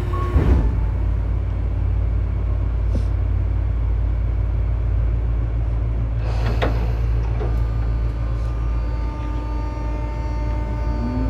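Tobu 9000 series electric train car with an armature chopper, standing with a steady low electrical hum; a sharp knock comes about six and a half seconds in. Near the end the chopper whine starts and rises in pitch as the train begins to pull away. This car's chopper is known for an abnormal noise.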